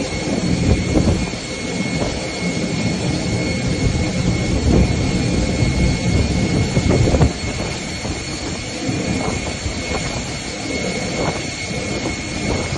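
Jet airliner engines running on a flooded apron: a steady high whine over a heavy low rumble, the rumble easing off about seven seconds in while the whine holds.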